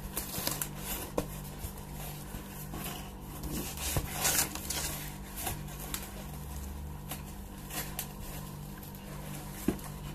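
A cardboard parcel box and its packing being handled and rummaged: irregular rustling, crinkling and small knocks, busiest about four seconds in, over a steady low hum.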